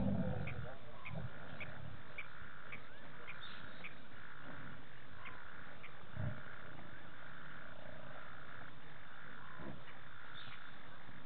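Frogs calling at a waterhole at night, a pulsing trill repeated about once a second, with sharp high chirps about twice a second through the first half. A short low grunt-like sound comes at the start and another about six seconds in.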